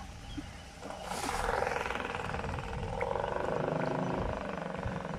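Small boat's motor coming in about a second in and running steadily as the boat gets under way.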